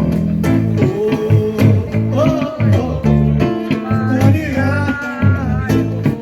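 Live Brazilian popular music: a singer over plucked guitar and bass guitar, the voice holding long, wavering notes in the second half.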